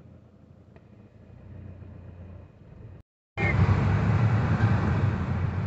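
Road vehicle on the move: a quiet low hum for about three seconds, then after an abrupt cut a much louder, steady rush of road and engine noise.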